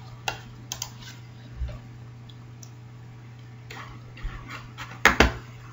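Scattered clicks and taps from working a computer's mouse and keyboard, with two louder ones close together about five seconds in, over a steady low electrical hum.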